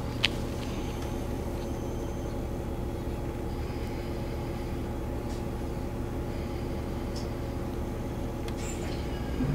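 City bus engine idling, heard from inside the cabin as a steady low hum while the bus stands still; a short sharp click sounds just after the start.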